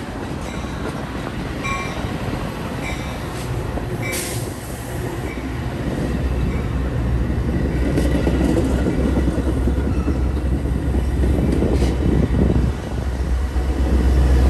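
Metra commuter train of stainless-steel bilevel cars rolling past, with a few clicks from the wheels over the rail joints. A low diesel drone from the locomotive at the end of the train grows louder through the second half.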